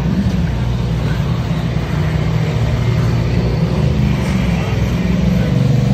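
Ducati V4R superbike's 998 cc V4 engine idling steadily with a deep, even note, getting slightly louder toward the end.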